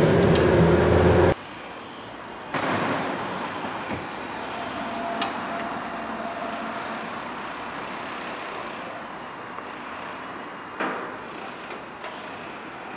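Engine and road noise inside a moving car, cutting off abruptly about a second in; then a quieter, steady outdoor hiss.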